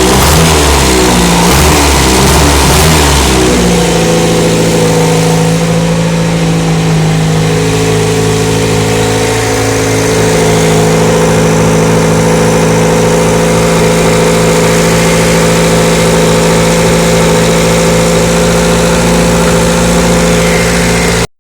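Reliant Regal van's engine running, uneven and revving for the first few seconds, then settling to a steady idle.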